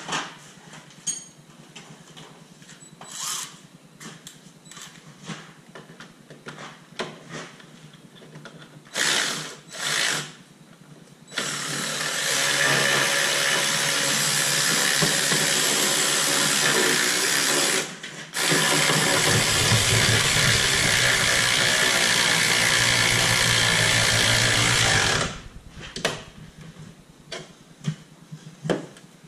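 A handheld cordless power tool runs in two long spells of about six and seven seconds, driving in the bolts once the holes of the lower control arm's ball joint are lined up; the second run takes on a deeper, heavier tone partway through. Before it come a few light metallic clanks and two short blips of the tool.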